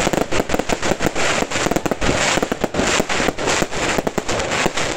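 Fireworks display: aerial shells bursting in a rapid, unbroken run of sharp pops and bangs, several a second.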